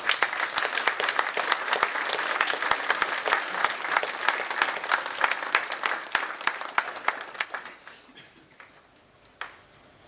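A roomful of people applauding: dense clapping that starts at once, then thins and dies away about eight seconds in, followed by a single sharp knock near the end.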